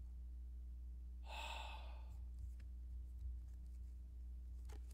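One soft breathy sigh of about two-thirds of a second, about a second and a half in, over a low steady hum, with a few faint ticks near the end.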